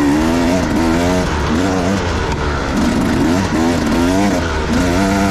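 Husqvarna enduro dirt bike engine being ridden hard over whoops on a dirt trail, its pitch rising and falling again and again as the throttle is rolled on and off, roughly once a second.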